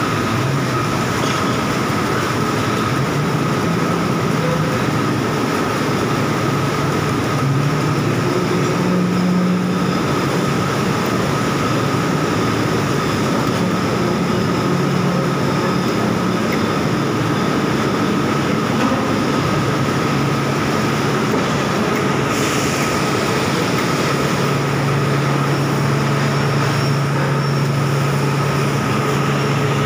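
Continuous casting machine area of a steel plant running: steady machinery noise with a constant high whine over it, and a low hum that grows stronger near the end.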